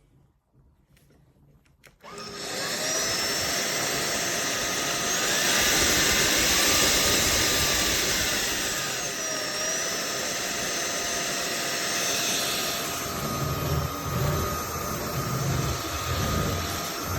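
A cordless stick vacuum cleaner's motor switches on about two seconds in and runs steadily. Its whine rises in pitch a few seconds later and drops back a few seconds after that. Low knocks and bumps come in near the end.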